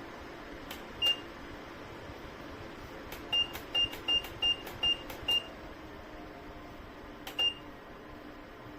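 Minthouz PTC ceramic fan heater beeping as its control buttons are pressed, each press a click followed by a short high beep: one about a second in, six in quick succession around the middle, and one more near the end. The fan runs steadily underneath.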